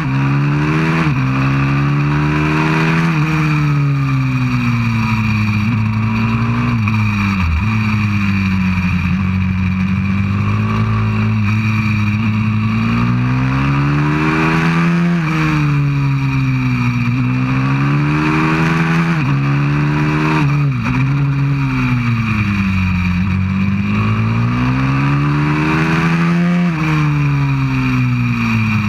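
190cc pit bike's single-cylinder four-stroke engine at racing speed, heard from on board. It revs up and falls back again and again through the lap, with several sudden drops in pitch at gear changes.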